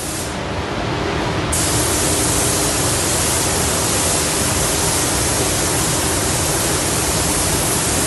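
Compressed-air gravity-feed spray gun hissing steadily as it sprays matt lacquer onto an alloy wheel; the hiss turns sharper and brighter about a second and a half in.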